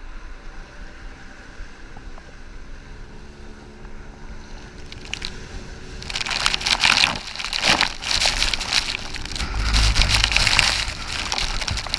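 Engine of the boat towing the inflatable banana boat humming steadily over lapping water. About six seconds in, it picks up speed and loud rushing spray and splashing water against the banana boat take over, with wind buffeting the microphone.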